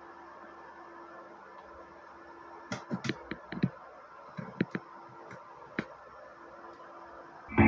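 A series of short, light clicks and knocks over a faint steady hum and hiss. Loud music starts abruptly right at the end.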